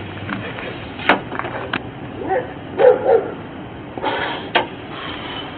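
An animal's short calls, a pair about two to three seconds in, over sharp clicks and rustling nearby.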